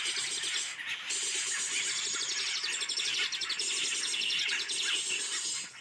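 Dense, continuous high-pitched chirping of forest birds, with a short break just under a second in.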